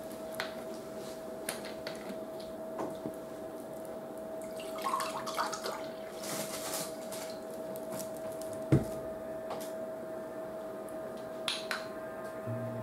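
Cap twisted off a large plastic bottle of tea, then the tea poured into a glass for a couple of seconds, followed by one sharp thump as the bottle is set down on the table, the loudest sound. A few light clicks near the end as the glass is lifted to drink.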